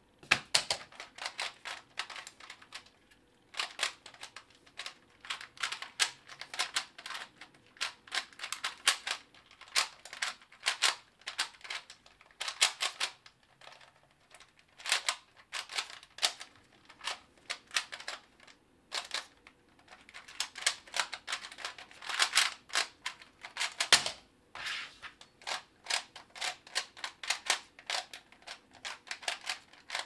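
Rapid clicking and clacking of a plastic 3x3 Rubik's cube as its layers are turned fast one-handed, in quick runs of turns broken by short pauses.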